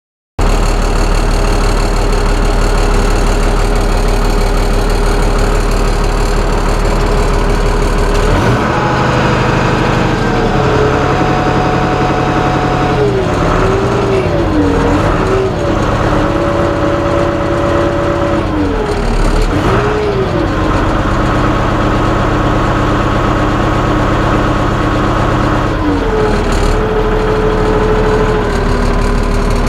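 Case International 956XL tractor's diesel engine running, its engine speed rising and falling several times. It lacks its usual exhaust whistle, which the owner puts down to a crack in the exhaust manifold.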